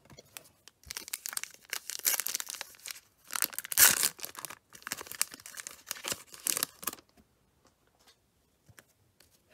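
Silver foil trading-card pack being torn open by hand, its wrapper crinkling and crackling in a run of short tears from about a second in until about seven seconds, loudest near the middle.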